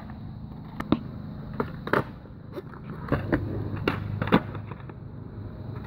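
Skateboard wheels rolling on concrete with a run of sharp wooden clacks from the board as a flip trick is popped, the loudest clack about four seconds in.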